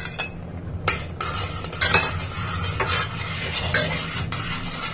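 A steel spoon stirs thick, simmering moong dal and vegetable khichdi in a steel pressure cooker pot. It makes a wet, sloshing stir, with a sharper scrape or clink against the pot about once a second, over a low steady hum.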